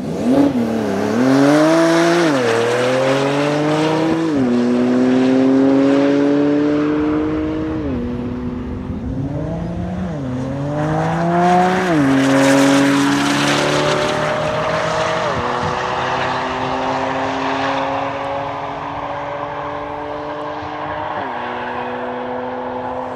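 A Porsche 911 Turbo and another supercar launching from a standing start and accelerating hard, engines climbing in pitch and dropping back at each upshift, several times over.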